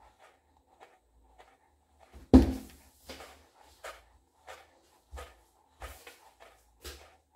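A red high-heeled pump dangling from a nylon-clad foot, slapping and rustling against the heel in soft, repeated taps about once or twice a second, with one much louder thump a little over two seconds in.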